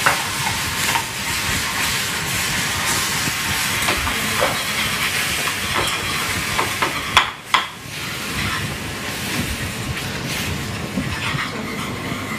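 Hot caramelised sugar hissing and sputtering steadily as cream is whisked into it, with a wire whisk scraping the pan and two sharp clinks about seven seconds in.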